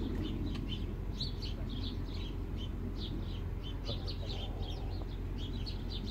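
Small birds chirping, many short high calls a few times a second, over a steady low rumble of outdoor background noise.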